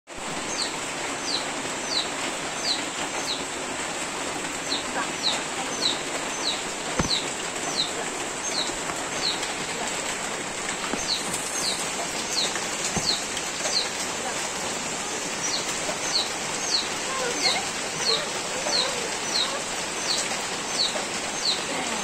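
Heavy rain pouring steadily, with a small bird's high, falling chirps repeated about two to three a second in runs with short pauses.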